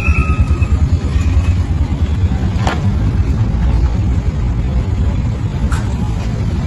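Busy city street: a steady low rumble of passing cars and scooters, with two brief clicks about three seconds apart.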